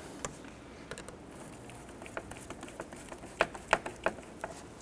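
Scattered light clicks and ticks of a flat-blade screwdriver tightening a hose clamp on a rubber air intake tube, with a few sharper clicks in the last second and a half.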